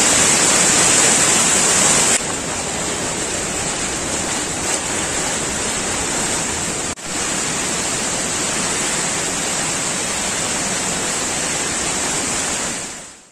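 Floodwater rushing: a swollen, fast-flowing river and water gushing out of a drain opening in a wall, a steady rush of water. It drops in level about two seconds in, breaks off briefly around seven seconds, and fades out near the end.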